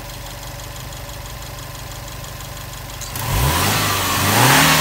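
Subaru WRX STI's EJ20 turbocharged flat-four (boxer) engine idling steadily. About three seconds in, the throttle is pressed and the revs climb, then hold high.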